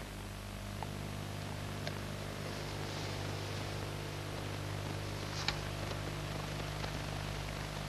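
Quiet, steady low hum and hiss of an old archive film soundtrack with no program sound, broken by two faint clicks, about two seconds in and about five and a half seconds in.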